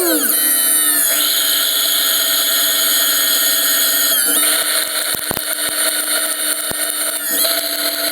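A lathe running under power: a steady whine from the spindle drive that shifts pitch about a second in and again about halfway through, with a few sharp ticks in the second half.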